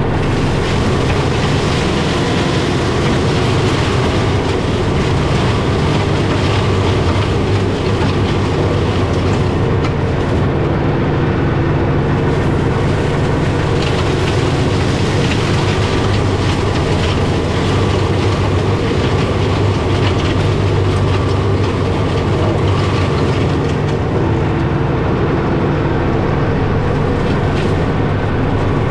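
John Deere 4066M tractor's four-cylinder diesel engine running steadily under load, driving a Fieldmaster GM180BB mulching mower that shreds thin gorse, with a dense, continuous rattling clatter from the mower.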